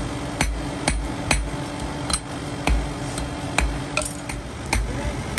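Hand hammer striking hot iron on a steel anvil, forging electrical wiring hooks: sharp metallic blows, about two a second at an uneven pace.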